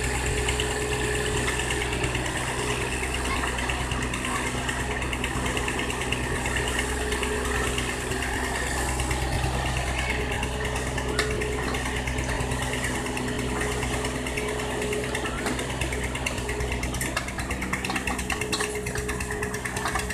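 Excavator's engine running steadily at an even speed.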